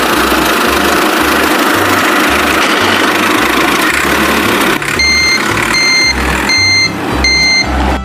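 A loud, steady rushing hiss for about five seconds, then a vehicle reversing alarm beeping four times, evenly spaced about 0.8 s apart.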